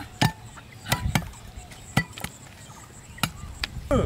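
Heavy cleavers chopping water buffalo foot bones on wooden stump blocks: about eight sharp, irregular chops, several choppers working at once.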